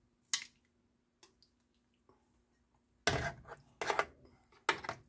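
Metal kitchen tongs clicking and knocking against a metal roasting pan while a raw chicken breast is set in place: one short clack about half a second in, then a few more short handling sounds in the last two seconds.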